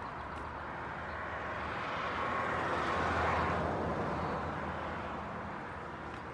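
Noise of a passing vehicle, swelling to a peak about three seconds in and fading away again.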